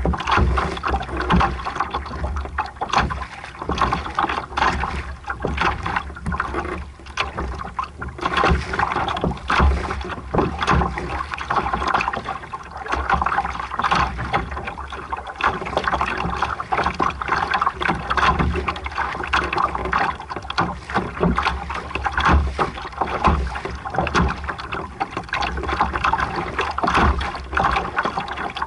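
Water rushing and slapping along the hull of a sailing yacht under way: a steady noise broken by frequent short splashes, over a low fluttering rumble.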